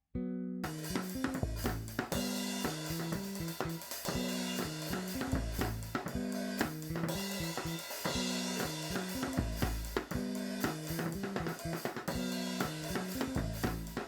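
Music: a rock-style track with a full drum kit (snare, bass drum, hi-hat, cymbals) over a repeating bass line, starting about half a second in after a brief gap.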